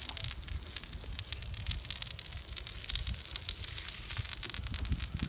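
Water jetting from a hose and spattering onto a freshly poured concrete roof slab, a steady hiss with fine crackling patter, as the slab is wetted to cure it. A low rumble runs underneath.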